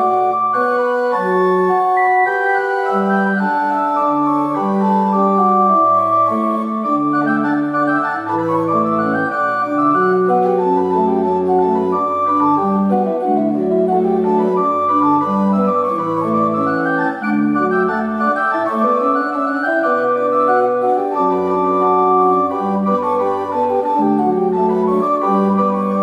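Old English pipe organ, with parts possibly from around 1780, playing a chordal piece without a break: held chords over a bass line that steps from note to note, the notes changing every half second to a second.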